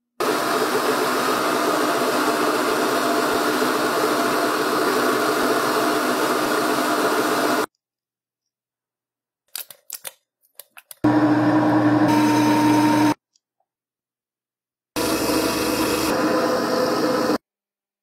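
Metal lathe running with a steady mechanical hum, cut off abruptly after about seven seconds. A few light clicks follow, then it runs again twice in short stretches of about two seconds, each starting and stopping abruptly.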